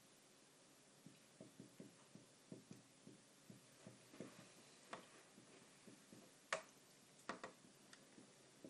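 Faint, irregular tapping and ticking of a marker pen writing on a whiteboard, with a few sharper clicks about six and a half and seven and a half seconds in.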